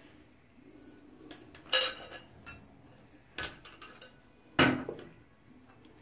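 Metal clinks and knocks of chrome faucet trim being fitted back onto a tub faucet's valve stem: three sharp clinks about a second and a half apart, with lighter ticks between them.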